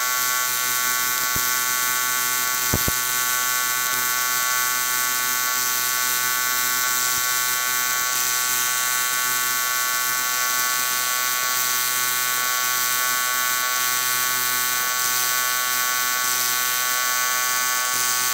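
Aluminum being TIG welded: the AC arc buzzes steadily as the molten pool is built up and filler rod is tapped in, with a couple of brief clicks in the first three seconds.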